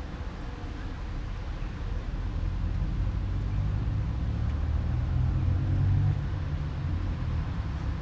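A low rumble that builds up from about two seconds in, is loudest around six seconds in and then eases off.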